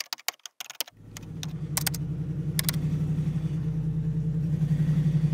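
Pickup truck engine running steadily, fading in about a second in and slowly growing louder. A quick run of sharp clicks comes just before it, and a couple more clicks are heard over it.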